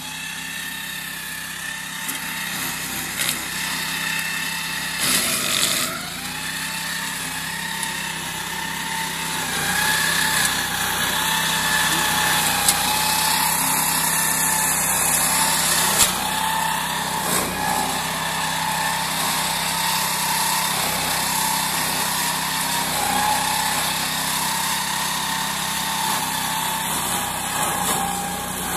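Small engine of a walk-behind meadow mower with a chain shredding system, running steadily as it cuts through grass and brambles, with a few brief knocks.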